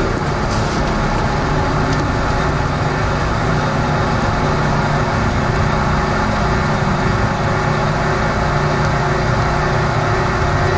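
Toronto subway train running on the Yonge line, heard from inside the front car: a steady rumble of wheels on rails with a low, held motor hum.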